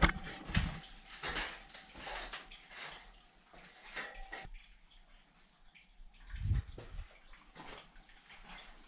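Irregular light splashing and dripping of water, with one louder low thump about six and a half seconds in.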